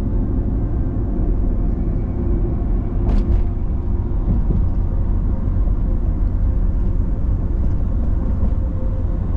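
Ford Super Duty pickup driving on the road, heard from inside the cab: a steady low rumble of engine and tyre noise, with a brief faint click about three seconds in.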